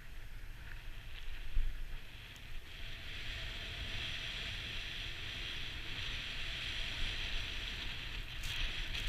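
Snowboard sliding and carving through powder snow: a steady hiss that grows stronger about three seconds in, over a low rumble of wind on the microphone.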